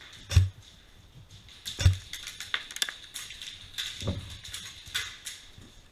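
A few dull thumps, two strong ones in the first two seconds and fainter ones later, among scattered sharp clicks and ticks, over a faint steady high-pitched tone.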